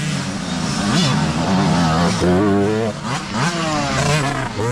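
Several youth dirt bike engines revving up and down as the riders climb a steep hill, pitch rising and falling with the throttle, one bike passing close by near the end.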